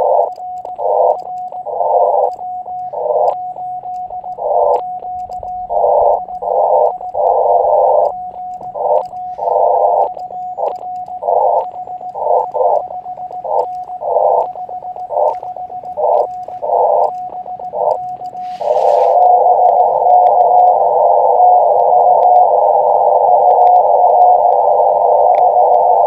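Morse code sent with full break-in on an Elecraft KX2 transceiver: a steady sidetone near 700 Hz while keying, with the receiver's narrow band of hiss cutting back in between characters and words. It plays through a small external speaker. About 18 seconds in, the sending stops after a brief click-like burst, and the receiver's filtered band noise runs on steadily while the operator listens for a reply.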